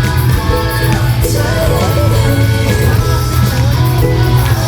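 Music with a singing voice over a steady, heavy bass line.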